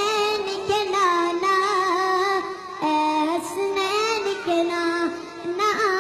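Young boy singing a naat solo, holding long wavering melodic notes.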